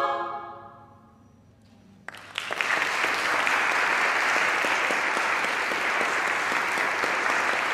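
A women's choir's final sung chord dies away in the church's reverberation, then after a brief hush audience applause breaks out about two seconds in and goes on steadily.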